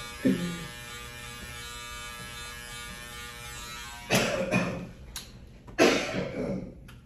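Electric hair clippers running with a steady buzzing hum while cutting hair. Partway through, two louder noisy bursts break in, about two seconds apart.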